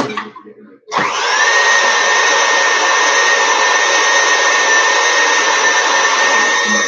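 Stand mixer starting up about a second in after a few light knocks, then running steadily with a whirring whine as its wire whisk beats egg whites in a stainless steel bowl toward soft peaks.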